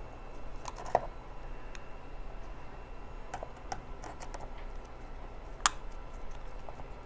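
Scattered light clicks and ticks of a hand tool working a screw out of the printer's housing, with one sharper click about five and a half seconds in.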